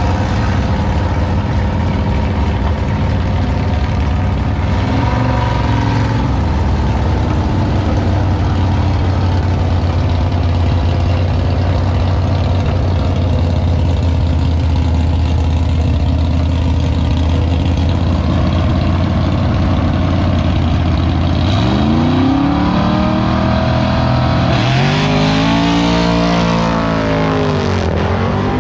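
Two 1957 Chevrolet drag cars' engines idling at the starting line, with a short rev about five seconds in. Near the end they launch, the engine pitch rising and falling several times as they accelerate away down the strip.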